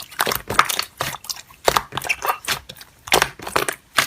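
Slime being squeezed and poked by hand, making irregular crackling and crunching sounds.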